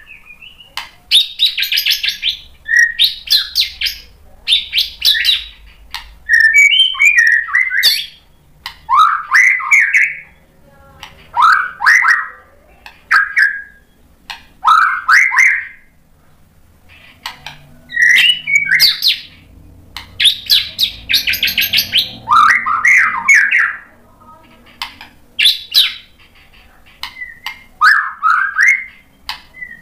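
White-rumped shama in full song: loud, varied phrases of rapid whistles, trills and sharp clicking notes, a phrase every second or two with short pauses between.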